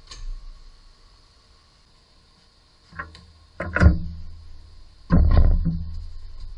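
A few clunks and knocks from hands-on work on a car's wheel and suspension, starting about three seconds in, the loudest a little before four seconds and a longer one about five seconds in, over a faint steady high whine.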